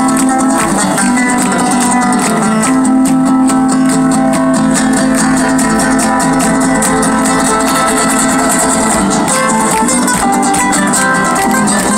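Live acoustic guitar music, fast flamenco-influenced plucking and strumming, heard through a concert sound system from the audience. It plays at a steady, loud level.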